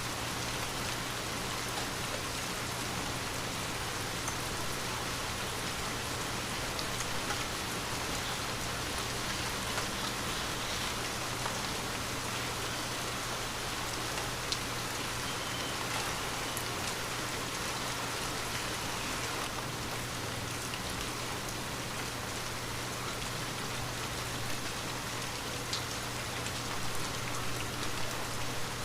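Light rain falling steadily, with scattered single drops ticking now and then.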